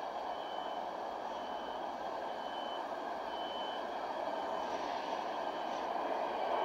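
Distant twin-engine turboprop airliner on its takeoff roll: a steady rushing engine noise that grows gradually louder. A short high-pitched beep repeats about once a second through the first few seconds, like a ground vehicle's reversing alarm.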